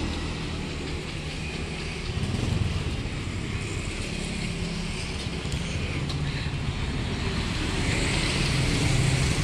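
Road traffic, mostly motorbike engines passing on the street, getting louder near the end.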